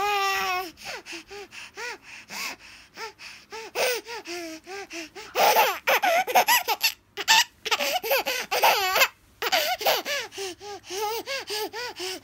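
Baby laughing in quick, repeated short bursts, loudest and breathiest in a run about halfway through.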